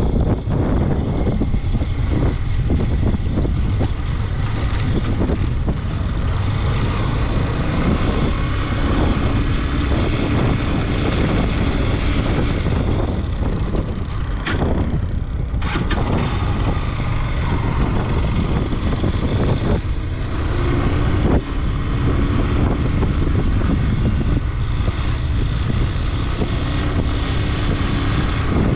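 Motorcycle under way on a sandy dirt track: the engine runs steadily, with heavy wind noise on the microphone.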